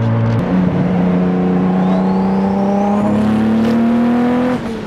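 Acura NSX's turbocharged 3.2-litre V6 pulling under throttle: the revs jump about half a second in and then climb steadily, with a faint rising turbo whistle. Near the end the pull breaks off with a sputter, which is taken for the ECU's fuel cut stepping in as boost builds, a sign the tune needs redoing.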